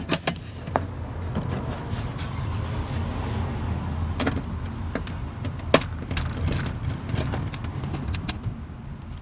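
Scattered sharp clicks and light knocks as wires and a TV circuit board are handled and connected, over a steady low rumble.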